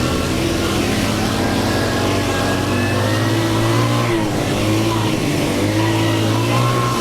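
ATV engine running while under way, its pitch steady with slight rises and dips.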